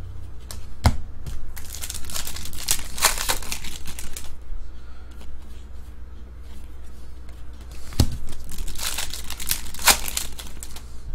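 Foil trading-card pack wrapper crinkling and tearing as it is opened, in two spells of crackling about two seconds in and again near the end, each preceded by a sharp tap.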